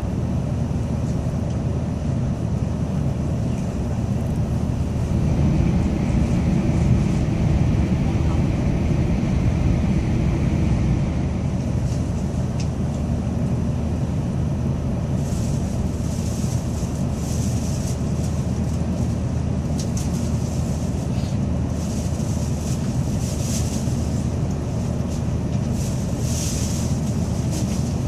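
Tokaido Shinkansen Kodama train running at speed, its steady low rumble heard inside the passenger cabin. The rumble swells a little about five seconds in, and faint high hissing comes and goes in the second half.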